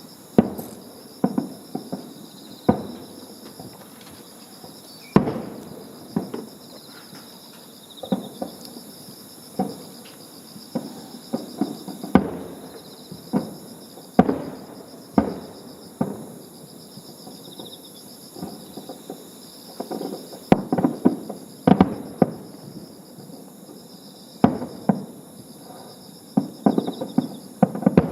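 Aerial firework shells bursting in a string of booms, one every second or two, with each bang trailing off in a rolling echo and several coming in quick volleys in the second half.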